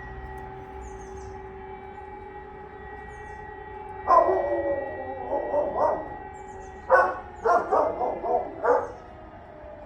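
A dog barking: one bark about four seconds in, then a quick run of about five barks near the end. Behind it, a distant electronic civil-defence siren sounds a steady tone that starts to fall in pitch at the very end.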